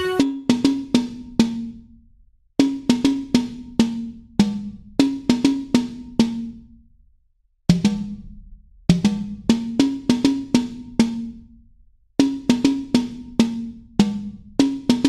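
Background music: a drum beat of short, pitched percussive hits in quick phrases, breaking off into brief silences three times.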